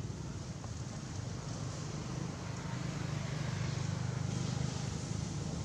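A steady low engine-like hum over a constant hiss, growing a little louder past the middle.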